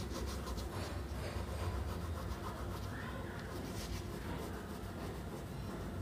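Vermilion oil pastel stick rubbing and scratching across drawing paper as an area is coloured in.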